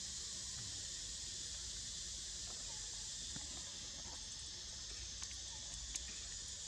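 Insects droning steadily in a high, even hiss, with a few faint clicks in the second half.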